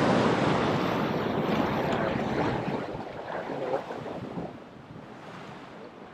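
Sea surf washing against a rock ledge: a loud rush of water at the start that dies away over about four seconds into a lower, steady wash.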